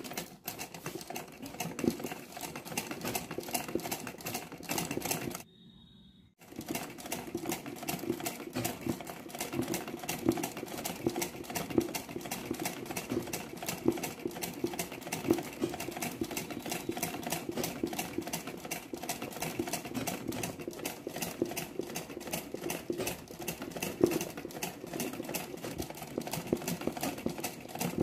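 Sewing machine running at speed while stitching free-hand machine embroidery, its needle giving a rapid, steady clatter. The sound cuts out for about a second around six seconds in, then resumes.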